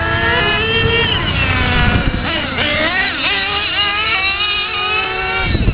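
Several radio-controlled model cars racing, their small motors whining high and overlapping. Their pitch rises and falls as they throttle up and down.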